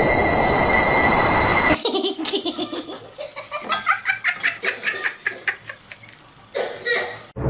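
A person laughing hard in a long run of quick, rhythmic bursts, after a steady hiss with high held tones that stops suddenly about two seconds in; the laughter cuts off abruptly near the end.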